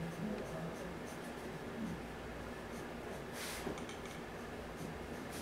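Faint scratching of a pen on sketchpad paper, with a brief hiss about three and a half seconds in.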